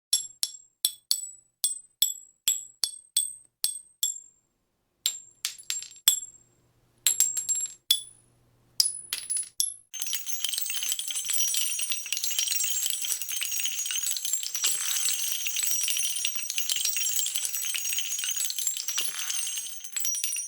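Small metal pieces dropping and clinking on a hard surface one at a time, about a dozen sharp ringing clinks, then from about ten seconds in a dense, continuous jingling clatter of many pieces pouring down.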